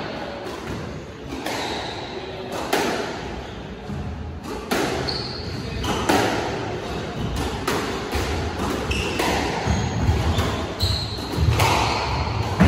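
Squash rally: the rubber ball cracks off rackets and the walls in an irregular string of sharp knocks, about one a second, echoing in the court. Short, high squeaks of court shoes on the wooden floor come between the shots.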